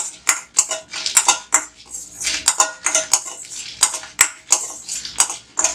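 Stainless steel ladle clinking and scraping against a stainless steel kadai in quick repeated strokes, stirring dried red chillies as they roast and then scooping them out.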